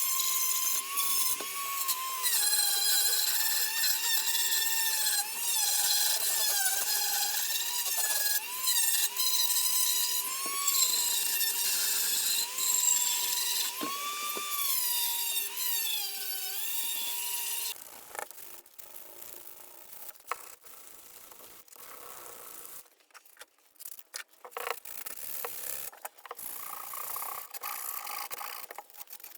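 A small electric power tool running, its motor whine dipping and recovering in pitch as it is pressed into the work and eased off. It cuts off about eighteen seconds in, leaving scattered light clicks and scraping from handling.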